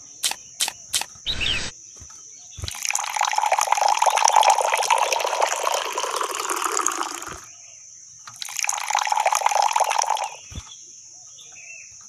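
Water poured in a thin stream into a small pool in a heap of cement powder and sand, splashing: two pours, the first about five seconds long starting nearly three seconds in, the second about two seconds long. Before them, a few short scrapes of a miniature metal shovel in the dry cement.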